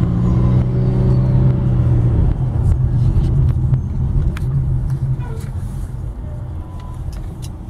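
Low rumble of a car's engine and road noise heard from inside the cabin while driving slowly in city traffic, with a steady hum for the first couple of seconds that then eases off and grows gradually quieter.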